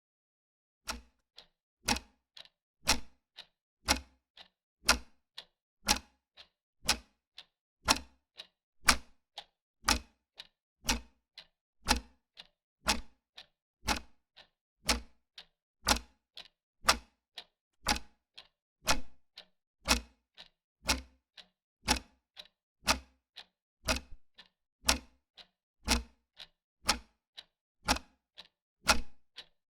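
Wall clock ticking steadily, about two clicks a second that alternate louder and softer in a tick-tock rhythm.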